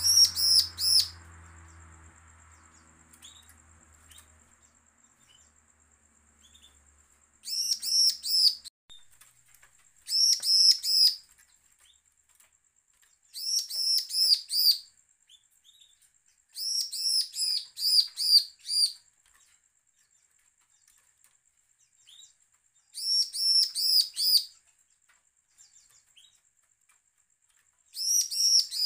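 Bar-winged prinia (ciblek) singing in short bursts of rapid, high, repeated chirping notes, about seven bursts each a second or two long with pauses of a few seconds between. It is a threatening, challenging song of the kind keepers use to provoke other ciblek into singing.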